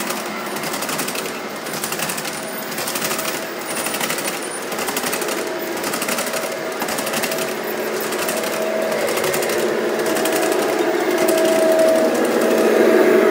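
Large-scale (1:29) model covered hopper cars rolling past on their track: a fast, steady clatter of metal wheels over the rails. It grows louder near the end as a hum rises.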